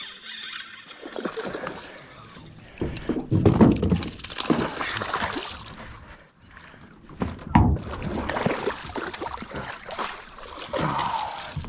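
Water splashing and sloshing around a small boat, with a few knocks against the hull, as a hooked bass is brought in and landed.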